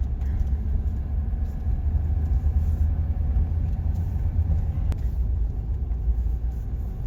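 Steady low rumble of a vehicle driving, heard from inside the cabin, with a single sharp click about five seconds in.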